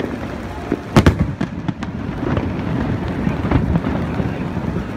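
Aerial fireworks bursting: a sharp double bang about a second in, then fainter pops over a steady rumble.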